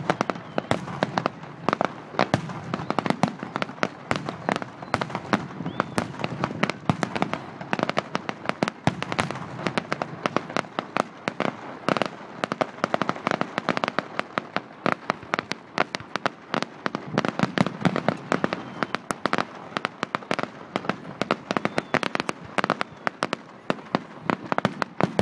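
Fireworks display: a dense, continuous run of sharp bangs and crackles, many per second.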